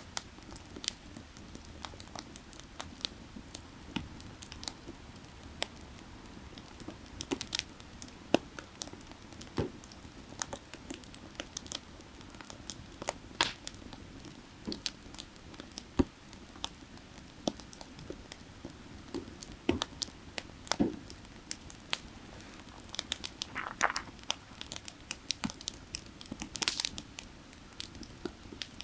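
Burning firewood crackling, with irregular sharp pops and snaps and a busier run of crackles near the end, over a steady low rush of creek water.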